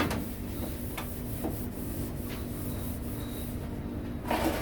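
Food-prep sounds in a commercial burger kitchen: a steady machine hum with a few light clicks and rubbing sounds as burgers are assembled.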